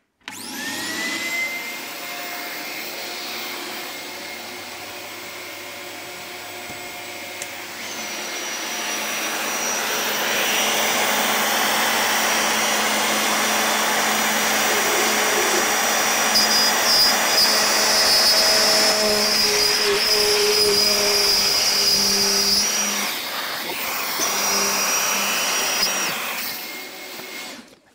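Triton plunge router spinning up with a quick rising whine, then running steadily, getting louder and harsher from about eight seconds in as it cuts a groove through an oak board along a straight edge. It stops just before the end, with its dust-extraction hose attached and drawing air.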